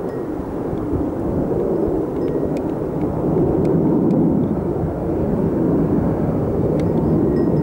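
Jet engines of a four-ship formation of MiG-29 fighters heard from the ground, a steady rumbling noise that grows a little louder midway.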